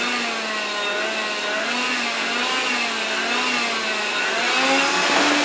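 Electrolux Ergorapido Lithium cordless stick vacuum running on carpet, a steady motor noise with a hum that wavers in pitch as it is pushed along. About four and a half seconds in the hum steps up to a higher, steadier pitch.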